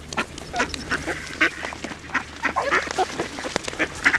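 A flock of mallard ducks quacking close by, many short calls in quick, irregular succession.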